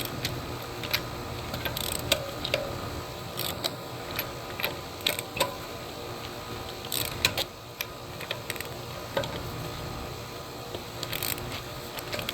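Hand ratchet clicking in short, irregular runs as the rear wheel's lug nuts are broken loose and backed off.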